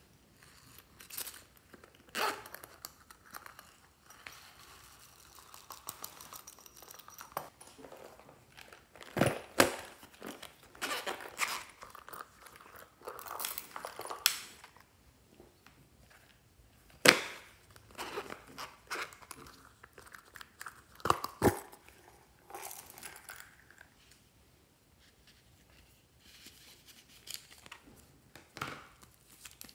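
Hands handling plastic toys and packaging: irregular crinkling and rustling, broken by a handful of sharp clicks or knocks.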